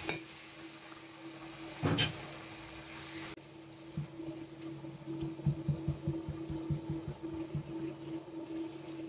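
A spatula knocking and scraping in a stainless steel pan as ground beef is stirred and broken up among sautéed vegetables: one heavier thump about two seconds in, then a quick run of short knocks over the second half, over a steady low hum.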